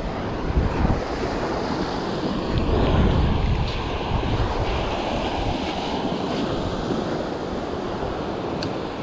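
Surf washing up on a sandy beach in a steady rush, with wind buffeting the microphone in low gusts.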